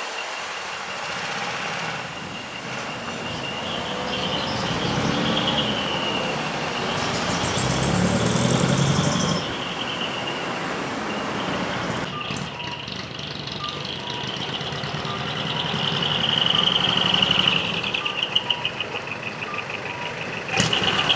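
Decorated trucks driving out, their diesel engines running, under a high electronic siren tone that wavers and glides up and down. A louder rush of engine noise comes about eight seconds in, and the siren comes back stronger near the end.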